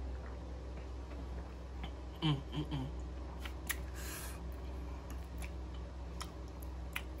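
Eating sounds after a drink: a short voiced grunt from the eater in three quick pulses about two seconds in, then a breathy exhale and a few small sharp clicks from the plastic fork and mouth, over a steady low room hum.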